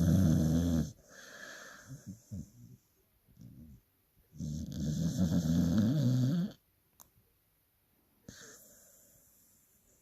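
Dog snoring loudly in its sleep: two long, loud snores about four seconds apart, with quieter breaths between them and a fainter snore near the end.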